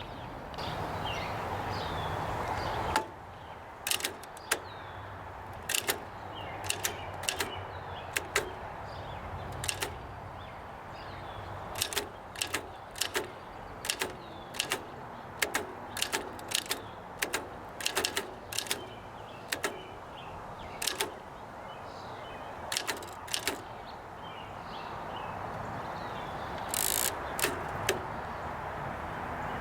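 1903 Oliver No. 3 typewriter being typed on: sharp, irregular key strikes of its downstrike type bars, one or two a second, sometimes in quick pairs. A steady rushing noise fills the first few seconds, and a longer noisy stroke comes near the end.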